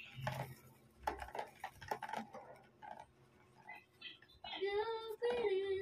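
Plastic stirring stick clicking and knocking in a plastic basin of liquid soap mix. About four and a half seconds in comes a high, wavering cry lasting about two seconds, the loudest sound.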